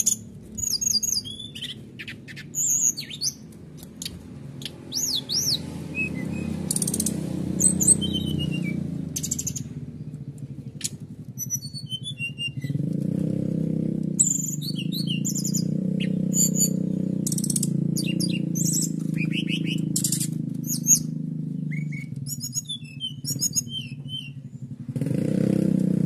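Brown-chested jungle flycatcher (SRDC) singing in quick, high-pitched bursts of chirps and trills, with canary-like phrases. A steady low rumble runs underneath and grows louder about halfway through.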